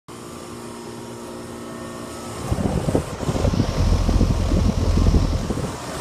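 Goodman heat pump outdoor unit running with a steady electrical and motor hum. About two and a half seconds in, a loud, irregular low rumble of air buffeting the microphone takes over as the air blown up by the condenser fan reaches it.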